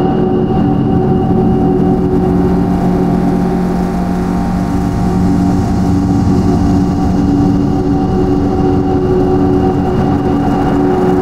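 A loud, steady drone of several held tones over a dense low rumble, from an experimental sound-art track.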